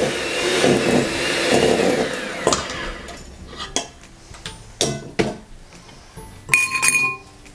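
Electric hand mixer running in a stainless steel bowl of stiff cookie dough, switched off about two and a half seconds in, its whine falling away. Then several knocks and clinks follow as the mixer is set down, with a sharper ringing metal clink near the end.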